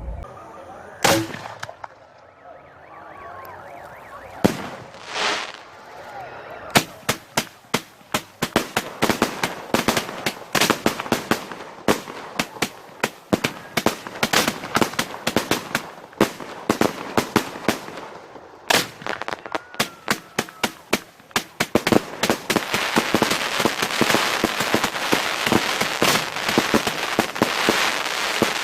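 'Volcano 360' firework going off: a single bang about a second in and a whoosh, then rapid cracks and pops in quick succession for many seconds, turning into a dense, continuous crackling in the last few seconds.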